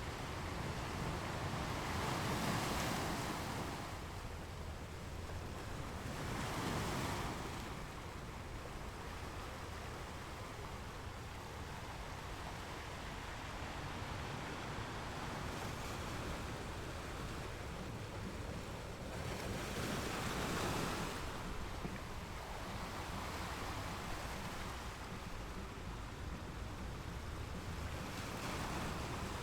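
Gentle ocean waves washing onto a beach: a steady wash of surf that swells louder four times as waves come in, over a constant low rumble.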